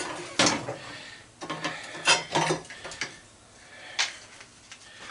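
Small parts from a light fixture being handled and set down: about half a dozen sharp clinks and knocks at irregular intervals, with light rattling between them.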